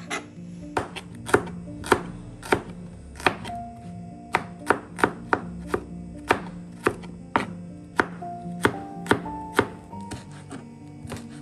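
Kitchen knife slicing vegetables on a plastic cutting board: sharp knife strikes on the board, about two a second, growing fainter and sparser near the end.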